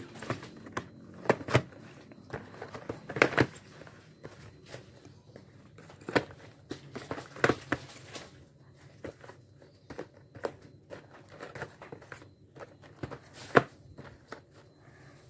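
Cardboard Pocky snack boxes being set down and shuffled by hand on a table: irregular light knocks and taps, a dozen or so, the loudest a little after three seconds in and near the end.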